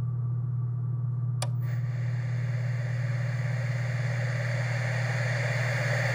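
Vintage television switching on: a click about a second and a half in, then a hiss of static that grows louder, over a steady low hum.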